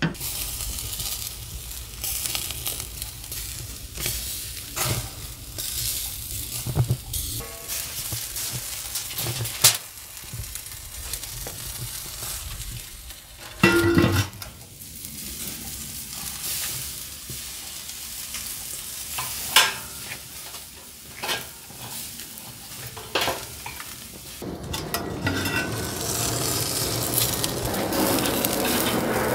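Steady sizzling broken by occasional sharp metal clanks and knocks, as the hanging char siu pork and its hooks are handled in a Pit Barrel Cooker over hot charcoal. The sizzling grows louder near the end.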